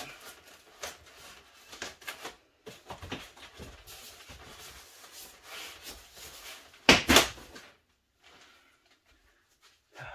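Cardboard box and its taped packing being handled and pulled open: irregular rustling, scraping and light knocks, with one loud, noisy rip or crunch about seven seconds in, then almost silent for the last two seconds.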